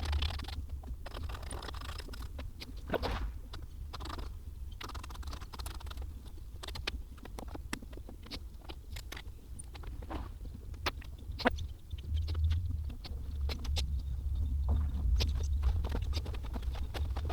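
Irregular light clicks, taps and scrapes of hands handling motorcycle fairing parts and wiring, over a low hum that is stronger at the start and again in the last few seconds.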